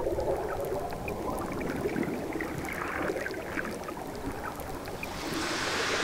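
Watery underwater ambience: a steady murky rush with scattered small clicks and crackles, and a brighter hiss that swells about five seconds in.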